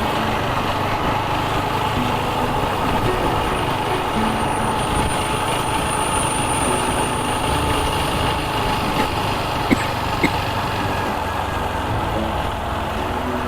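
TVS Apache RTR 160 4V single-cylinder motorcycle engine running steadily while riding, mixed with road and wind noise. A faint high-pitched whine comes in for a couple of seconds in the middle, and two sharp clicks come about ten seconds in.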